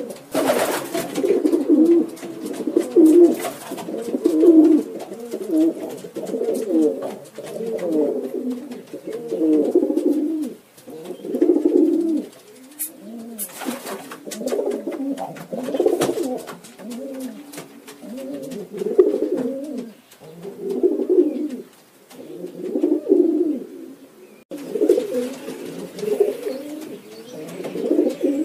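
Domestic pigeons cooing over and over, low repeated coos a second or two apart, several birds overlapping.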